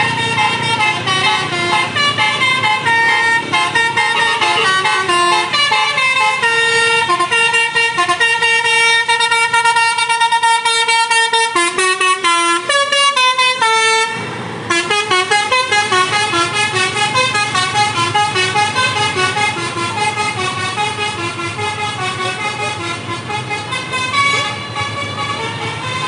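Basuri musical air horn on a bus playing a quick tune of stepped notes, with a short break about halfway through, over the low rumble of the engine.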